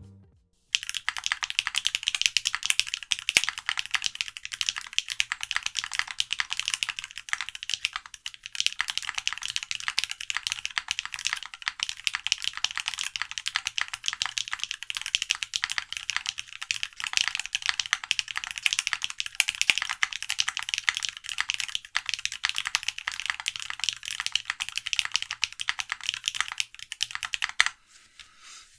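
Continuous fast typing on a mechanical keyboard with NovelKeys x Alexotos Granite linear switches (blended nylon top and bottom housings, POM stem) in a TGR Tomo: a dense stream of key clacks that starts about a second in and stops shortly before the end.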